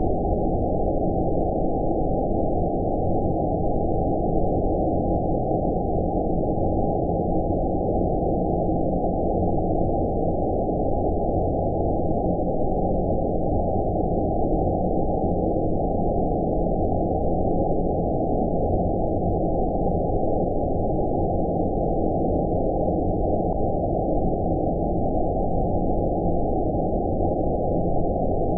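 Steady low rumbling noise sold as 'outer space' sleep noise: an even hiss held below a sharp top near 900 Hz, with no change in level.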